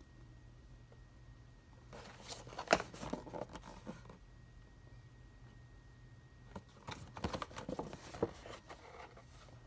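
Cardboard toy box handled and turned over in the hands: fingers scraping and rustling on the box in two stretches, about two seconds in and again near seven seconds.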